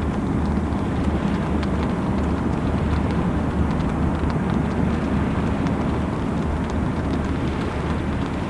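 Heavy rain, with scattered sharp ticks of drops striking close to the microphone over a steady low rumble.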